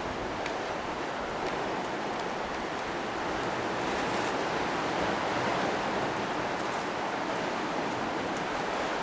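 Sea surf washing steadily on a rocky shore: a constant rushing noise, with a few faint ticks over it.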